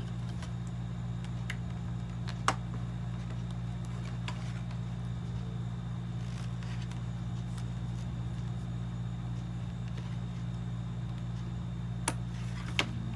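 A steady low hum with a few sharp little clicks of hands working at a doll's packaging: one about two and a half seconds in and two near the end.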